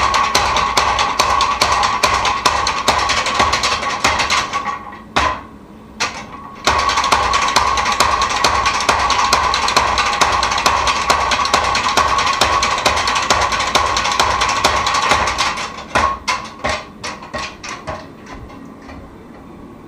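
Steel being forged under a fast, even run of hammer blows, with a steady ringing tone over it. The blows break off briefly about five seconds in, resume, then slow into separate strikes that die away near the end.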